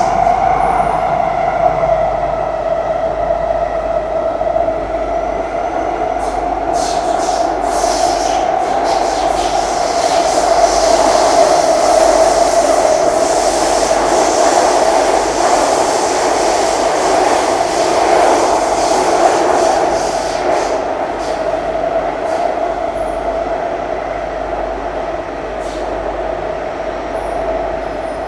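Singapore MRT train running between stations, heard from inside the carriage: a steady whine over rumbling wheel-on-rail noise, with a few sharp clicks of the wheels over the track. The whine eases slightly lower and quieter in the second half.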